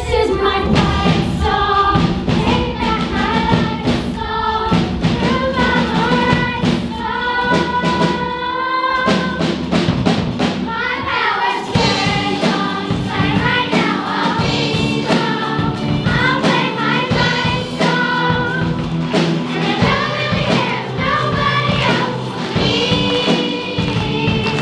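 A group of primary-school children singing a song together, one girl singing into a microphone, over music with drums.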